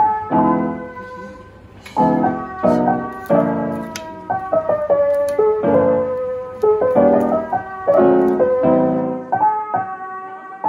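Background music: a gentle piano tune, with chords struck about once a second.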